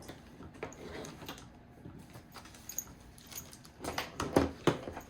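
Small plastic RC-kit parts being handled on a work surface: scattered light clicks and rustles, with a cluster of louder knocks about four seconds in.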